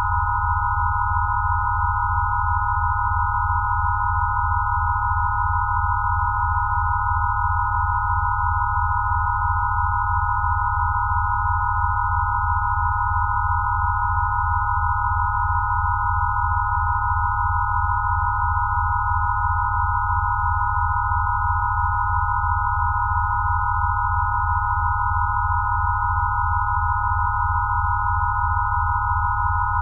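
Steady electronic sine tones: several pure tones layered together, a cluster around one kilohertz over a low hum, with a slow, even pulsing in the low tone. A synthesized Rife-style frequency set, unchanging.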